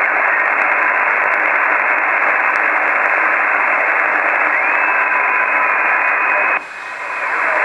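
Radio receiver static, a steady hiss with no signal, played through a Yaesu SP-2000 external speaker and cut off sharply in the treble, with a faint steady whistle under it. About six and a half seconds in the hiss suddenly drops, then swells back up.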